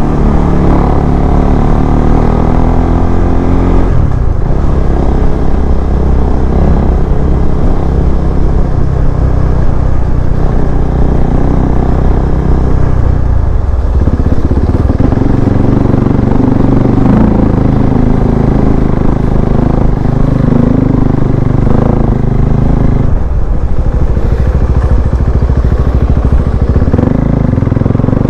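KTM 390 Adventure's single-cylinder engine running as the bike is ridden, its note rising and falling with the throttle. The note dips briefly three times, about four, thirteen and twenty-three seconds in.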